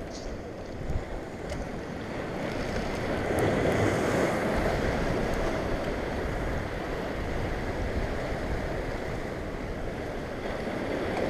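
Ocean surf breaking and washing over the boulders of a jetty, a steady rush of water that swells louder about three seconds in.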